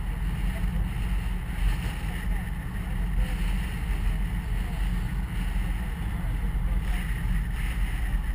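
Steady low rumble of a car driving at town speed, engine and road noise heard from inside the cabin.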